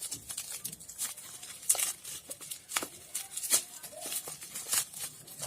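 Cardboard and plastic product packaging being handled and opened by hand: irregular sharp crackles and taps, a few of them louder.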